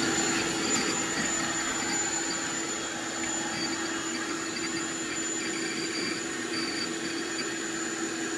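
Intex air mattress's built-in 120-volt electric pump running steadily as it inflates the mattress: a constant hum over a rush of air, with a faint high whine.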